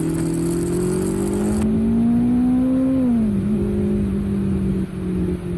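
Motorcycle engine pulling under throttle, its pitch rising steadily, then dropping about three seconds in and holding steady at cruising revs.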